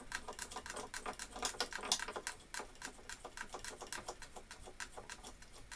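Small metal parts of a bench drill's depth stop being handled and adjusted by hand: quick, irregular light clicks and ticks, busiest in the first half and thinning out toward the end.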